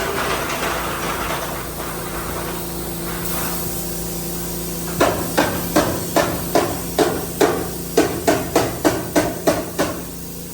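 A hammer driving nails: a run of about fourteen sharp blows at roughly three a second, starting about halfway in. A steady hiss and machine hum run underneath, the hiss strongest in the first few seconds.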